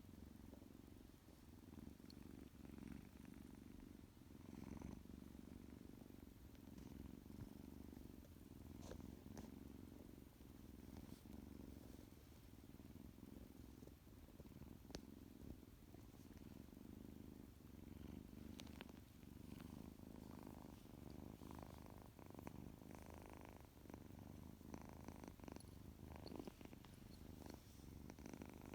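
Tuxedo kitten purring steadily, a faint low rumble that pulses with each breath.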